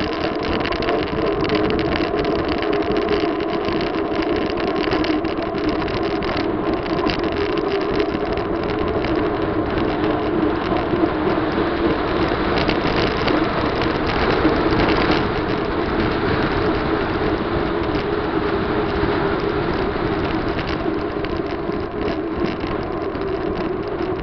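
Steady wind noise on the microphone of a camera carried on a moving bicycle.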